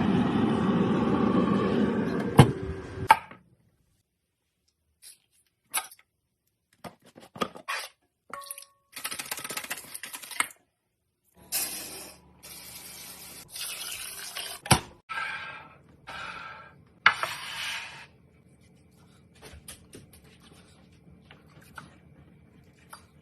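Kitchen sink sounds: water running and splashing, heavy for the first few seconds, then in short separate bursts, with a few sharp knocks among them.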